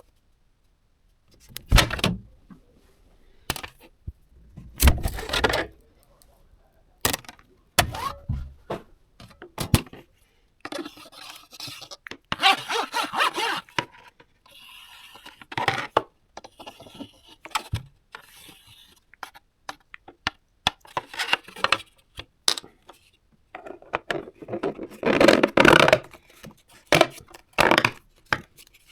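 Irregular knocks, clicks and scraping of hard objects being handled, with longer stretches of rubbing or scraping between the sharper knocks.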